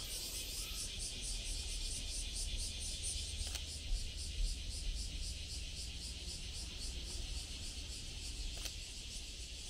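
Steady, high-pitched chorus of insects with a fast, even pulsing, over a low rumble. Two faint clicks come about three and a half and eight and a half seconds in.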